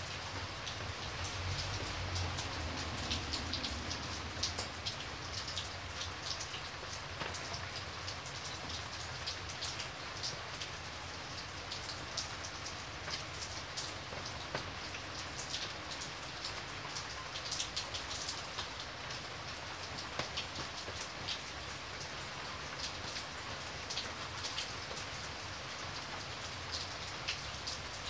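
Steady rain, with many separate drops heard as sharp ticks over an even hiss.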